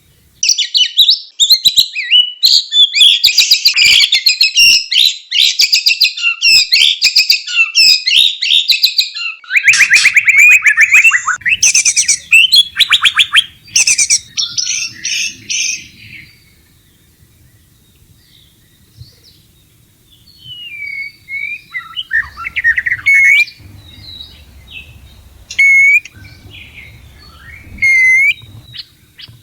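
White-rumped shama in breeding condition singing a fast, dense run of trills and rattling notes for about sixteen seconds. After a short lull it gives scattered, quieter whistled notes.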